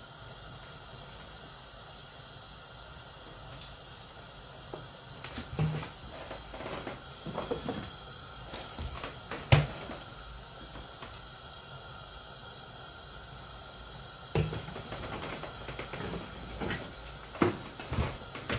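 A handful of short knocks and clicks from kitchen items being handled and set down, the sharpest about halfway through, over a steady background hiss; the oil in the pan is not yet hot enough to sizzle.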